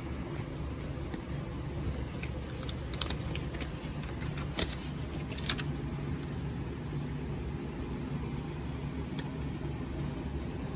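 A paper instruction manual being handled: a run of light clicks and rustles, the two loudest about halfway through, over a steady low hum.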